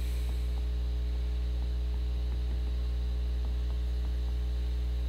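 Steady electrical mains hum in the recording, with faint light ticks of a stylus writing on a tablet screen.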